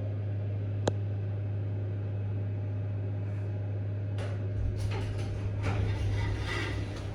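Elevator car travelling between floors: a steady low hum, a sharp click about a second in, and a few knocks and rattles in the last few seconds.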